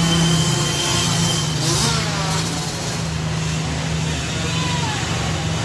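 Small 50cc dirt bike engines running around an indoor arenacross track: a steady, loud drone.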